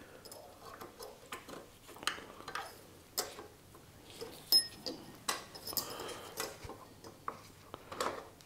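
Irregular small metallic clicks, taps and scrapes of a tool working worn-out brake pads loose from a scooter's rear disc brake caliper, with one sharper ringing metal clink about halfway through.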